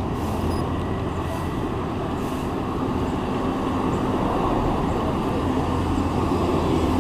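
Steady rumble of wind and road traffic heard while riding a bicycle.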